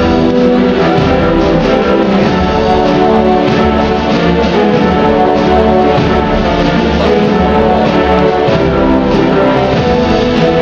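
Loud orchestral show music with brass.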